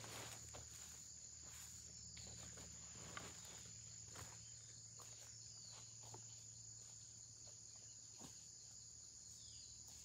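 Near silence: faint footsteps on pine needles and dry soil, fading as a person walks away, over a steady high insect drone.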